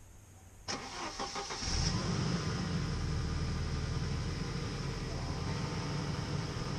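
UAZ Patriot engine being cranked and starting: a quick run of starter chugs, then it catches about a second and a half in and runs steadily.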